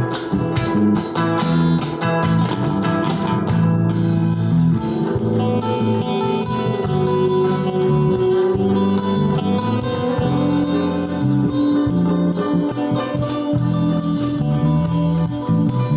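Guitar-led music played back through a home-built class A amplifier with IRF3205 MOSFET output transistors, heard through its loudspeaker.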